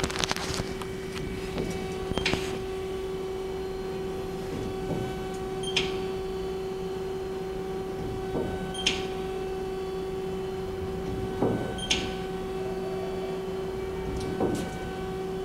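Haas SL-40 CNC lathe tool turret indexing station to station, about every three seconds: a short rising whir as it turns, then a sharp clunk as it locks in place. A steady hum from the running machine lies underneath.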